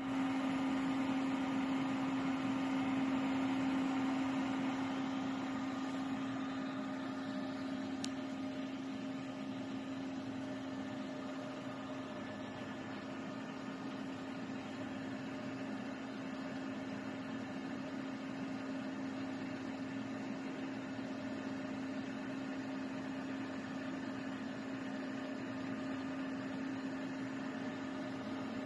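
Steady machine hum from the running pulsed green laser setup, with an even fan-like rush and one strong low tone under fainter higher ones. It is slightly louder for the first few seconds, then eases a little.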